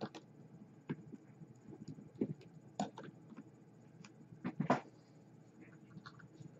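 Light scattered clicks and taps of small pliers and nichrome wire against the metal deck of a rebuildable atomizer as a coil is seated, the loudest about three seconds in and a close pair near five seconds.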